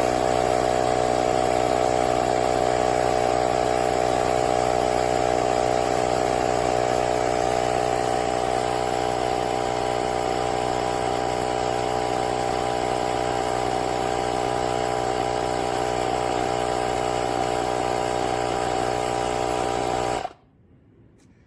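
WORKSITE 20-volt cordless automatic tire inflator's compressor running steadily while pumping a car tire. It cuts off suddenly near the end as the tire reaches the set 40 psi.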